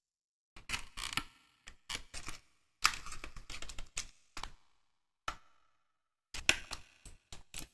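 Small card pieces of a 3D stadium puzzle being handled and pressed into their slots by hand: short clusters of clicks and scratchy rubbing, with silent gaps between them.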